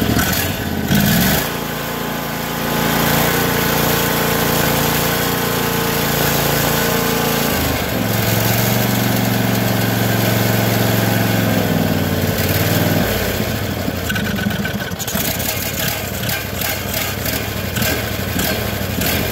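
Briggs & Stratton overhead-valve twin-cylinder engine idling with its air cleaner off, its speed shifting about eight seconds in and again near thirteen seconds. It runs weak on one cylinder with heavy blow-by, from a blown head gasket pushing exhaust into the crankcase.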